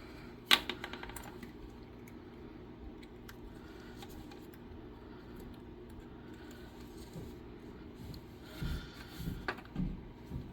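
Handling noise while a spare capacitor is checked: a sharp click about half a second in, then scattered light clicks and rustling over a low steady hum.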